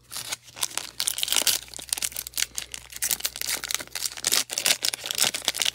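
Foil wrapper of a Panini Donruss basketball card pack being torn open and crinkled by gloved hands. It makes a dense, crackling rustle that grows louder about a second in.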